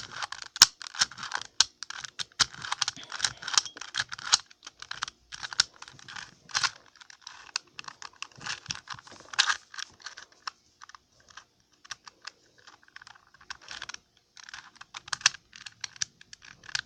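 Plastic 2x2 Rubik's Cube being turned quickly by hand: a rapid, irregular clatter of small clicks and clacks as the faces snap round. The clicking thins out for a few seconds past the middle, then picks up again.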